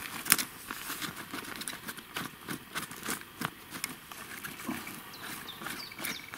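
Irregular light clicks and knocks, a few a second, of small objects being handled.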